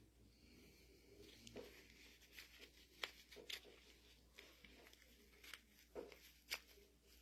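Faint, scattered small clicks and taps from small metal parts of a mini excavator's hydraulic control valve being handled during disassembly, about half a dozen over several seconds, over low room tone.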